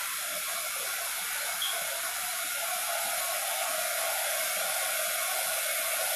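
Electric hot-air blower running steadily with an even, rushing hiss.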